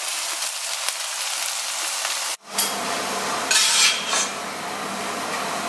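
Diced potatoes sizzling in hot oil in a frying pan, with a slotted metal spatula stirring and scooping them. The sizzle cuts out abruptly for a moment about two and a half seconds in, then carries on, with a few louder scrapes and scoops of the spatula a second or so later.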